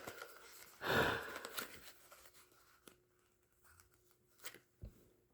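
Packaging being pulled and torn open by hand: one short rip about a second in, then a few faint clicks and taps.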